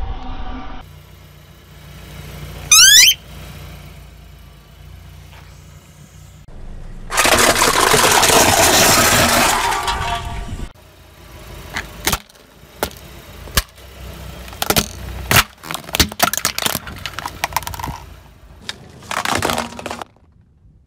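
A car tyre rolling slowly over toothpaste tubes and plastic sauce sachets, crushing and bursting them. There is a short high squeal about three seconds in, a long stretch of loud crackling and squelching from about seven seconds, then a run of sharp pops and cracks.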